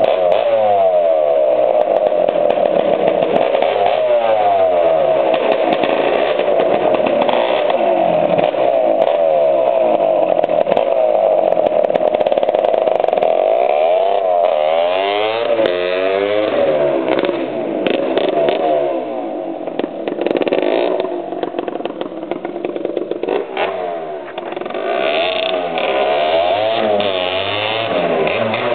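Honda MTX 200's two-stroke single-cylinder engine running after its start and revved repeatedly, its pitch rising and falling with each blip of the throttle. Later it is ridden away, quieter for a stretch, then louder again as it comes back near the end.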